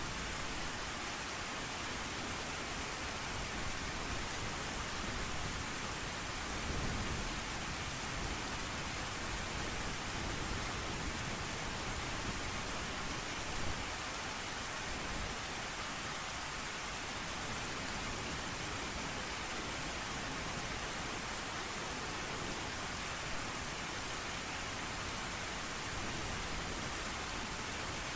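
Steady heavy rain hiss, even and unbroken, with a short low rumble of thunder about seven seconds in.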